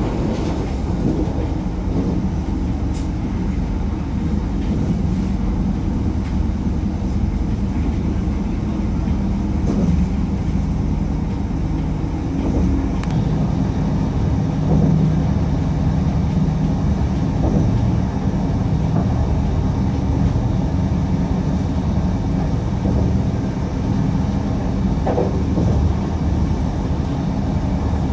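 Interior noise of a moving Pesa Elf electric multiple unit: a steady low rumble of wheels on rail with a low hum, and a few faint clicks.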